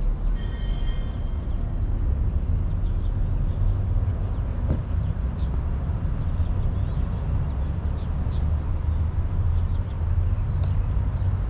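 A steady low rumble with scattered short, falling bird chirps over it.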